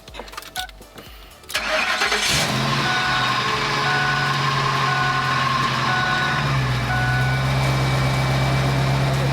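Ford F250 Super Duty pickup engine cranking and starting about a second and a half in, then idling, the idle settling lower a few seconds later. A warning chime beeps about once a second over the idle.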